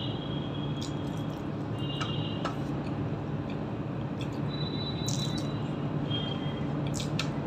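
Fingers squishing and mashing rice with curry on a steel plate, with soft wet clicks and the mouth sounds of chewing. A steady low hum runs underneath.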